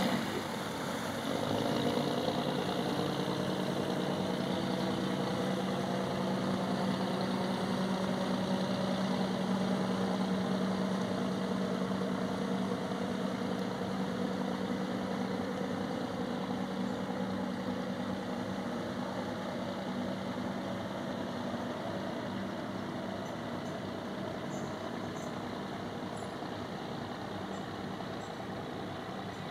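A fishing crabber's diesel engine running with a steady low drone as the boat motors away, slowly growing fainter as it draws off.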